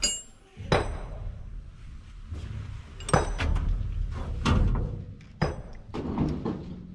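Metal tools and parts knocking and clinking on the engine, about six sharp knocks a second or so apart, the first with a short metallic ring.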